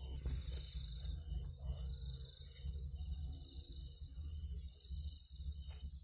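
Night insects trilling steadily at a high pitch, over a low rumbling handling noise from the camera being carried through the grass.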